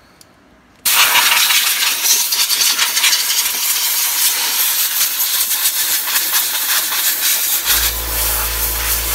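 Compressed air from an air-compressor blow gun hissing loudly as it blows the gook out of a chainsaw's cover, starting suddenly about a second in. A low steady hum comes in near the end.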